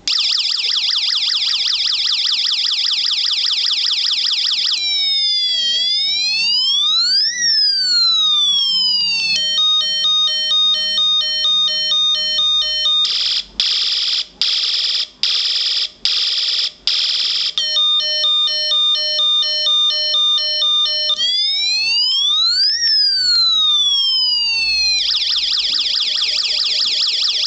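Electronic sound effects from a UM3561 siren-generator chip through a small speaker, cycling through its effects. A fast machine-gun-like rattle opens and closes it; in between come a slow rising and falling wail, a stepped two-tone siren, and an on-off pulsing blast about twice a second.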